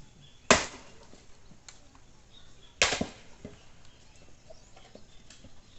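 Two sharp blows of an axe striking firewood, about two seconds apart, the second followed by a couple of lighter knocks.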